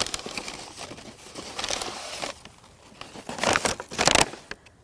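Brown kraft packing paper rustling and crinkling as a plant in a paper sleeve is lifted out of a cardboard shipping box, with two louder crinkles near the end.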